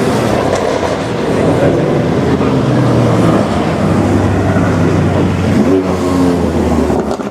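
Audi RS7 Sportback's twin-turbo V8 running through a loud aftermarket exhaust, with a steady low engine note. It cuts off abruptly near the end.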